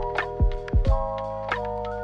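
Background music: sustained keyboard-like chords over a soft, regular drum beat. The beat drops out about halfway through, leaving the chords held.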